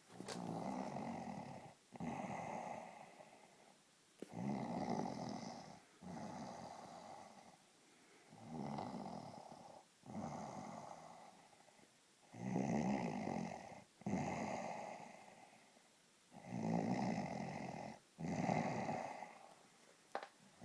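A sleeper snoring in a steady rhythm: five breaths, each a pair of snores back to back, repeating about every four seconds.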